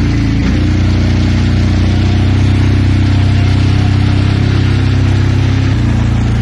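Small ATV engine running under way at a steady speed, its pitch stepping up about half a second in and shifting again near the end, with wind rushing over the microphone.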